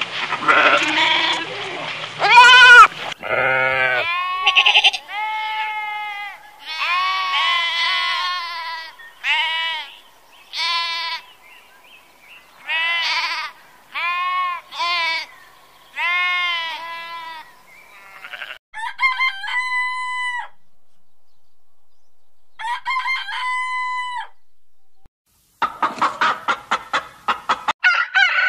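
A sequence of farm animal calls: goat kids bleating at the start, then lambs bleating over and over in short arching bleats. Two longer, even-pitched calls follow past the middle, and near the end a hen clucks in quick succession.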